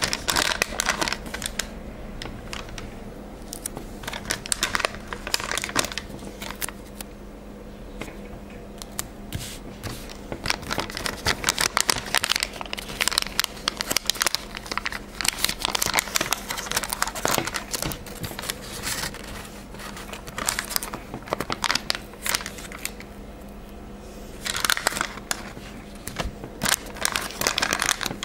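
Glossy sticker sheet crinkling and crackling in irregular bursts as fingers handle it right at the microphone and peel stickers off the backing, over a steady low hum.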